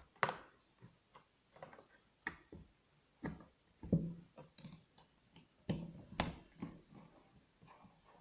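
Irregular clicks, taps and knocks of a Bosch PMF 220 CE oscillating multi-tool being handled, its metal saw blade and clamp worked by hand and an Allen key fitted to the clamping screw for a blade change. The motor is not running.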